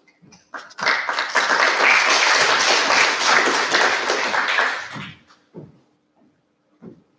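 A small audience applauding for about four seconds, the clapping starting about a second in and dying away; a few light taps follow.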